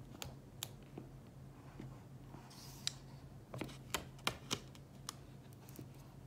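Hands handling a smartphone and its cardboard box: scattered light clicks and taps, a short rustle about two and a half seconds in, and a quick run of sharper clicks around four seconds.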